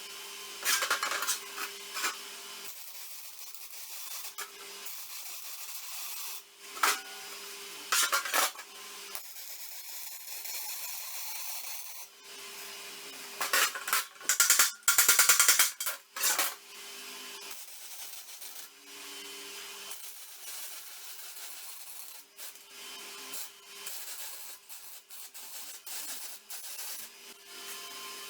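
Hand-tool scraping and rasping on material in short irregular bursts, the longest and loudest about halfway through, over a steady low hum.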